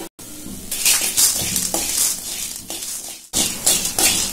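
Coriander seeds being stirred with a metal slotted spoon in a metal kadai: the spoon scrapes the pan and the seeds rattle and skitter over it as they dry-roast in a little oil, with a short break about three seconds in.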